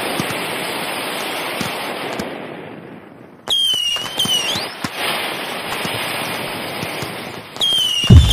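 Aerial fireworks crackling densely, fading away about three seconds in. Then a louder stretch of sharp pops and bangs with a high, wavering whistle, heard twice.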